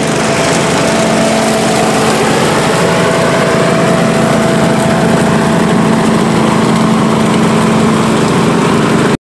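Small engine of a riding lawn tractor towing a leaf vacuum cart, running steadily with a constant hum. It cuts off suddenly near the end.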